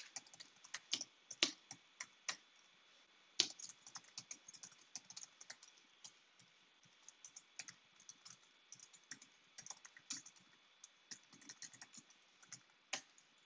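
Typing on a computer keyboard: quick, irregular keystrokes in short runs, with a brief lull about five seconds in.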